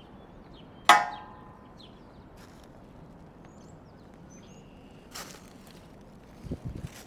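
A single loud metal clang with a short ringing decay, steel striking steel, about a second in; later a lighter knock and a few dull thumps near the end.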